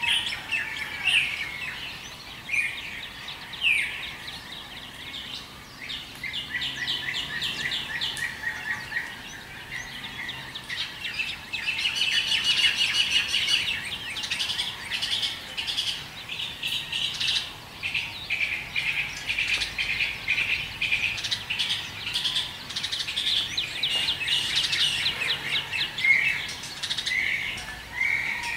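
Dawn chorus of many birds chirping and trilling at once, a busy overlap of quick high-pitched calls that is densest about halfway through.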